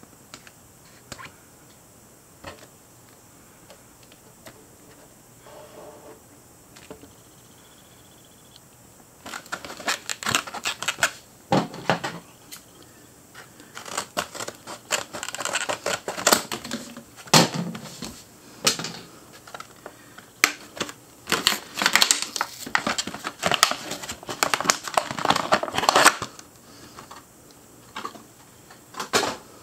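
Scissors cutting open a stiff clear-plastic blister pack, with repeated loud crackling and crinkling of the plastic as it is cut and pulled apart. Before that come a few faint clicks and rustles of the packaging being handled.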